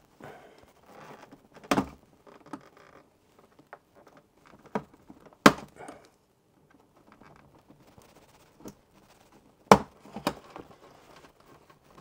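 Plastic retaining clips of an all-in-one PC's back cover snapping free as a plastic pry tool is worked along the case seam. Several sharp clicks, the loudest about four seconds apart, with faint scraping of plastic between.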